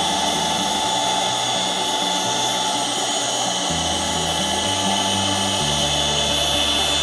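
Scarlett 260-watt electric hand mixer's motor running steadily with a high, even whine.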